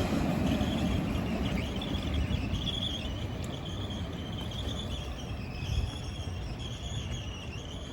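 An S-Bahn train running away, its rumble fading steadily, while crickets chirp in a high wavering trill.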